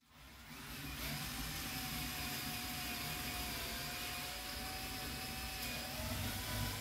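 Cordless drill boring a 6 mm hole through a vise-clamped stack of sandpaper strips: the motor spins up over the first second and then whines steadily, its pitch sagging slightly under load, with a deeper rumble growing near the end.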